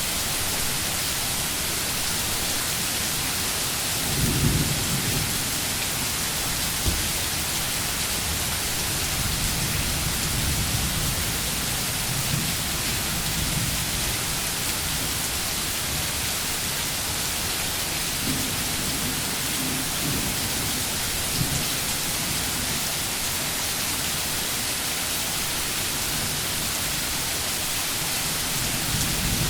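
Steady rain falling, with low rumbles of thunder rolling in a few times; the strongest comes about four seconds in.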